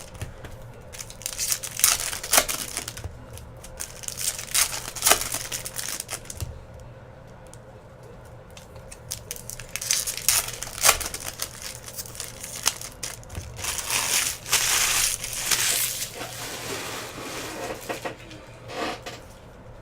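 Foil trading-card pack wrappers from a 2017 Bowman Baseball box crinkling and tearing as packs are opened, with sharp crackles throughout and a longer continuous stretch about three-quarters of the way through.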